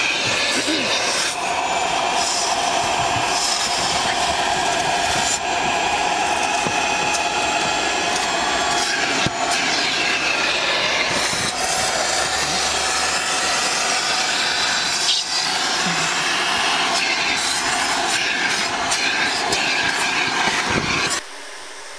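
Upholstery extraction vacuum running steadily as its wand is drawn across a fabric car seat, with a rushing suction noise and some scraping of the tool on the cloth. It cuts off suddenly near the end.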